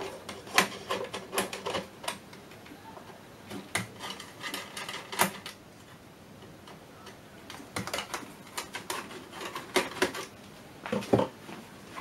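Screwdriver working out the screws on the metal module cases of a vintage avionics rack: irregular runs of sharp metallic clicks and scrapes, in three bursts with short quiet gaps between.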